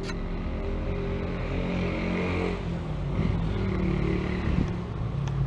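A motor vehicle's engine running steadily, a low hum that gets gradually louder and shifts pitch slightly about halfway through.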